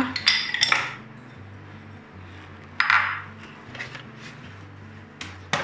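Ice cubes tipped into a plastic blender jar, clinking sharply at first, then a short rattle about three seconds in and a few small clicks near the end.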